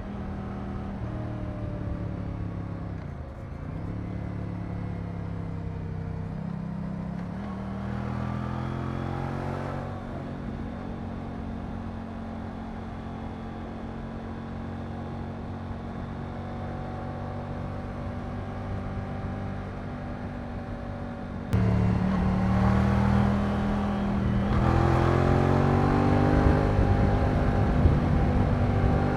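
Moto Guzzi V100 Mandello's transverse V-twin under way: steady running with a few small pitch changes for most of the stretch. Near the end it suddenly gets louder and the pitch rises twice as it accelerates through the gears.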